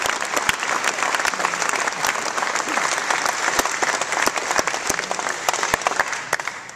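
Audience applauding, a dense clapping that dies away near the end.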